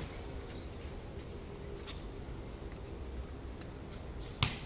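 Low steady background noise with a few faint taps, then one sharp, loud smack of a volleyball impact near the end.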